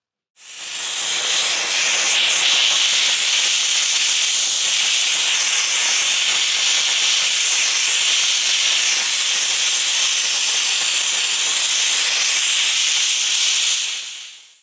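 Handheld steam cleaner jetting steam from its wand nozzle onto a stone wall: a steady, loud hiss that fades in over the first second or so and fades away near the end.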